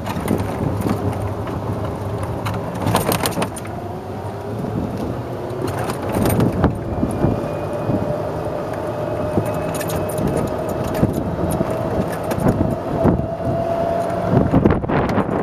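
1993 Club Car DS golf cart driving along a paved path: its drive runs with a whine that climbs slowly in pitch from about four seconds in as the cart picks up speed, over frequent rattles and clicks from the cart's body and windshield frame.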